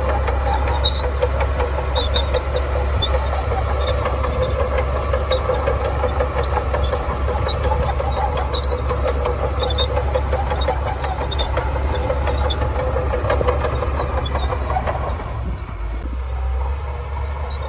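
Shantui DH17C2 bulldozer's diesel engine running steadily under work, with scattered short metallic clinks over it. About fifteen seconds in the engine note drops and runs quieter.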